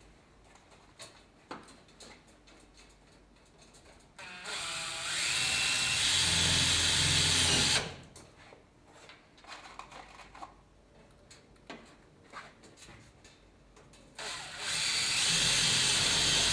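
Cordless drill driving Orbix self-drilling screws, which drill, fix and tighten in one run. It runs twice for a few seconds, once about four seconds in and again near the end, and the motor speeds up at the start of each run. Between the runs there are faint scattered clicks and taps.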